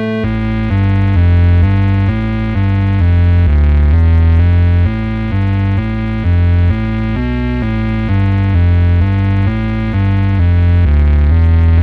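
Electronic synthesizer music: a sequenced synth bass line stepping from note to note about twice a second under sustained higher synth tones, with no drums.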